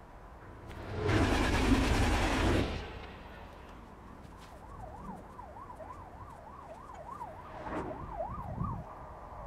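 An emergency-vehicle siren wailing rapidly up and down, about two to three swings a second, starting about halfway through. A loud rushing noise runs for about two seconds near the start.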